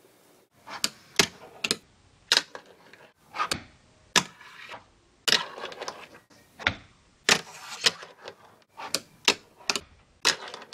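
A fingerboard ridden on a wooden fingerboard ramp, making a run of sharp, irregular clacks as the deck pops and lands on the wood, with short stretches of wheels rolling between them.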